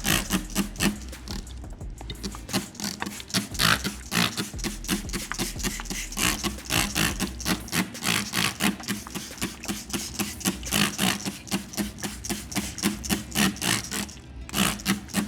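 Hand trigger spray bottle of plain water squirted over and over in quick, uneven bursts to rinse a brake caliper, over faint background music.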